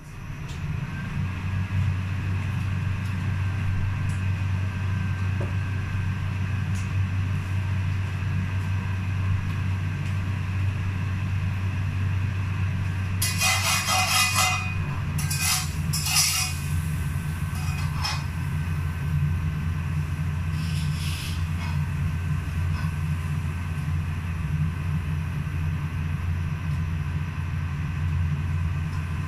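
Kitchen range hood fan switched on, rising quickly to a steady low rumble. About halfway through, cookware clatters on the stove in a short run of sharp knocks, with a couple more single knocks after.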